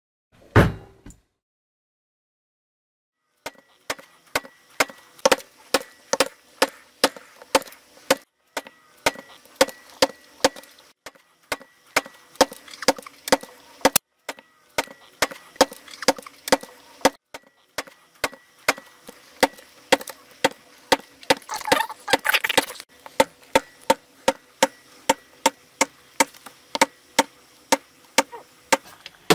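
Hand hole punch struck over and over with a mallet, punching stitching holes through leather: a single knock at the start, then a steady run of sharp knocks at about two a second.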